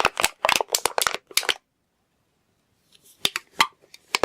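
Thin metal cans being squeezed by hand, crinkling: a quick run of sharp clicks and pops for about a second and a half, a pause, then a few more clicks near the end.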